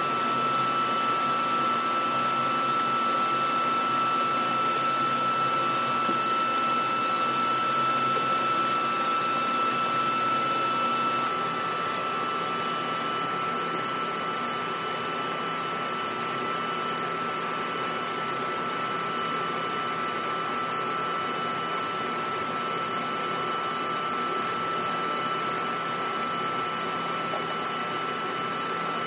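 Steady whine of aircraft turbine engines: several high, unchanging tones over a rushing noise. It becomes a little quieter about eleven seconds in.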